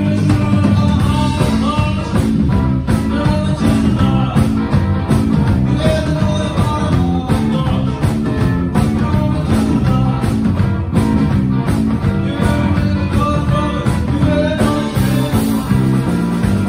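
Live rock-and-roll trio playing loudly: electric guitar, electric bass and drum kit together, with a steady bass line and drum beat under the guitar.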